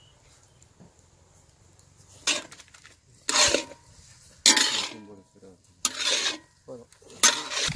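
A long iron ladle scraping and stirring a scramble of egg and cabbage in a large iron kadai. There are about five separate loud scrapes, roughly a second apart, starting about two seconds in.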